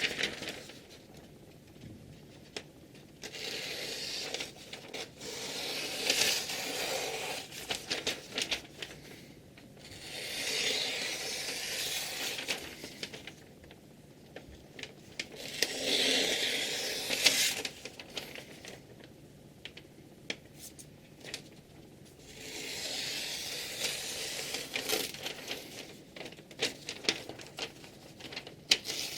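Repeated long rasping passes of a steel kitchen knife's blade, about six of them, each two to three seconds long, with small clicks and ticks in the pauses between.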